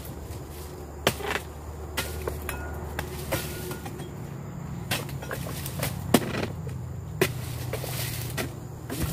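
Oil palm harvesting chisel (dodos) on a long pole striking and cutting palm frond bases: irregular sharp knocks about once a second, the loudest about six seconds in, over a steady low hum.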